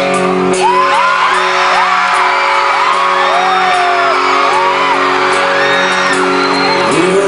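A single chord from a rock band held steady on stage, cutting off near the end, under a large concert crowd screaming and whooping in many short high cries.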